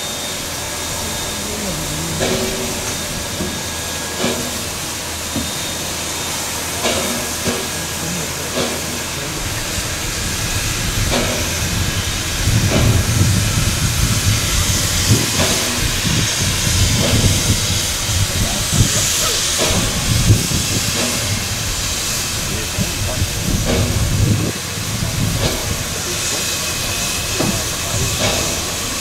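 Steam locomotive with a steady hiss of escaping steam. A low rumble swells in the middle and eases again near the end.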